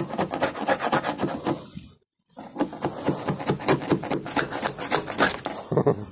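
A chisel scraping and chipping at a fiberglass boat deck in a fast run of strokes, about four a second, broken by a brief silence about two seconds in.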